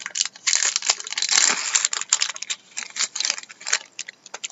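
Crinkling and tearing of a trading card pack's wrapper as it is ripped open and the cards pulled out, a dense run of crackles loudest through the first half and thinning to scattered crinkles near the end.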